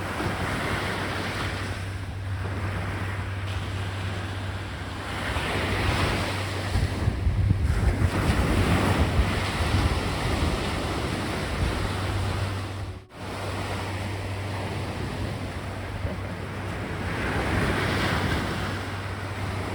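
Sea waves breaking on a beach, the surf swelling and fading every few seconds, with wind buffeting the microphone.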